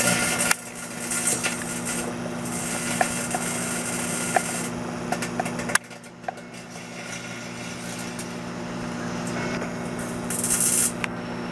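Microwave oven running with a steady electrical hum while a graphics card inside it arcs, giving rasping, sizzling stretches and scattered sharp snaps, with a loud snap about six seconds in.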